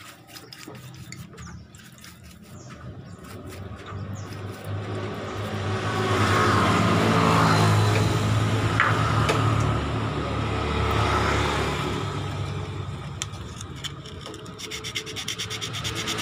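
Brush scrubbing dirty starter-motor parts in a tray of cleaning liquid: repeated rubbing and scraping that builds up and is loudest in the middle, over a low hum.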